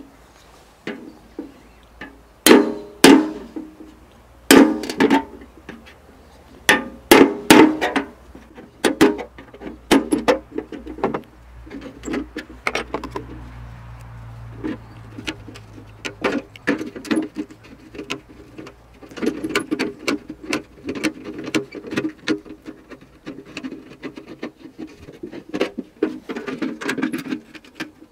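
Sharp metal strikes on a steel paint can, loudest and most spaced out in the first half, then a fast, dense run of small metallic clicks and crunches as tin snips cut a hole in the can's sheet steel. The footage is sped up.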